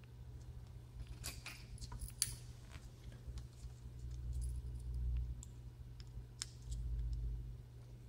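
Light clicks and taps of plastic and small metal parts as hands work the open housing of an inline power-cord switch and its small terminal screws, with a cluster of clicks about a second in and more scattered through the middle, over a low steady hum.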